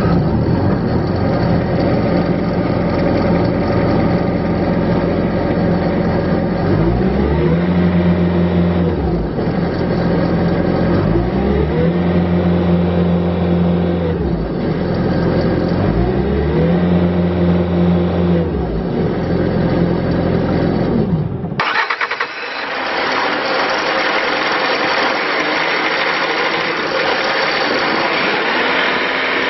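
Bobcat S510 skid steer's diesel engine running, revved up, held and let back down to idle three times. About two-thirds of the way through the sound changes abruptly: the deep engine note drops away and a higher-pitched running sound carries on.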